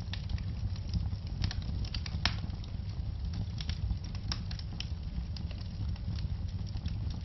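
Wood logs burning in a fireplace: a steady low rumble of the flames with irregular sharp crackles and pops, several each second.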